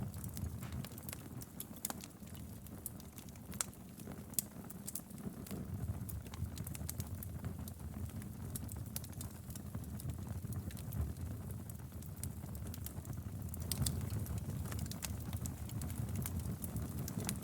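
Wood fire burning in a fireplace: a steady low rumble of the flames with many irregular sharp crackles and pops from the burning firewood.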